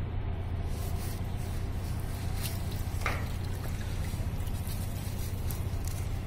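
Water sloshing and trickling as a frayed rope shrimp mop is shaken out into a landing net held in the water, with a couple of brief splashes about two and a half and three seconds in. A steady low hum runs underneath.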